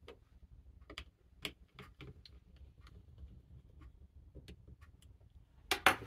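Scattered light clicks and taps of hands handling the parts inside an open laptop's chassis, around the SSD and its copper heat sink, with two sharper, louder clicks near the end.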